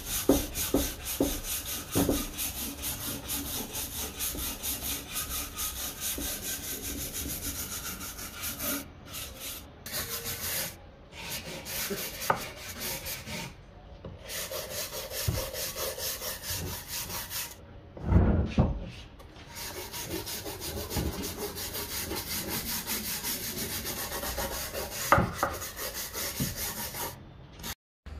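Steel wire brush scrubbed back and forth over a rough wooden board in quick, repeated scraping strokes, with a few short pauses. A heavy wooden thump partway through.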